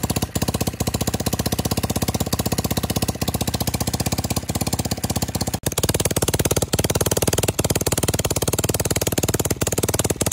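Small air-cooled generator engine running on its own after repair, with a rapid, even firing beat that shifts in tone about halfway through. It has just been started and runs properly again, its carburetor refitted and new bearings in.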